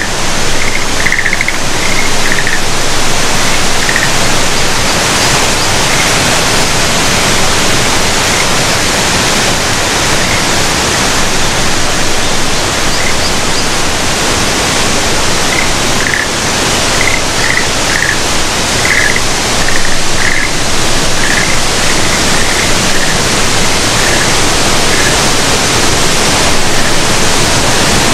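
Steady, loud rush of water. Short high chirps come in clusters over it at the start and again in the second half.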